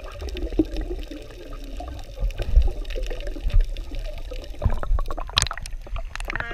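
Water sloshing and splashing, with a low rumble and a few sharp knocks about five seconds in.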